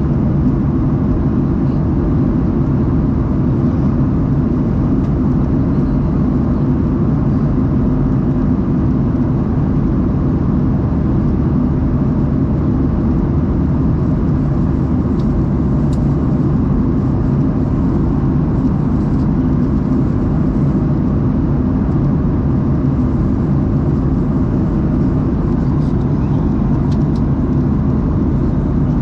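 Steady low drone of a Boeing 737-800's CFM56 jet engines and airflow heard inside the passenger cabin, even and unchanging throughout.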